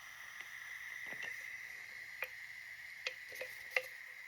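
Carbonated soda fizzing faintly in a freshly opened can: a steady soft hiss with a few small clicks and pops.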